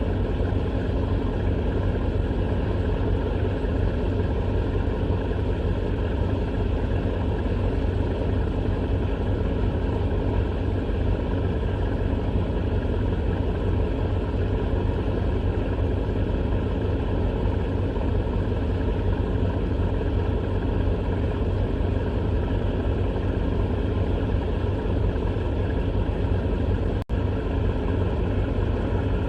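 A steady low rumble with a faint constant hum above it, broken by a momentary dropout a couple of seconds before the end.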